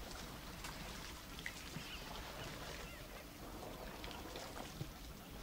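African savanna elephants at a shallow river pool: soft splashing and sloshing of water with scattered small clicks, and a few faint high chirps about midway.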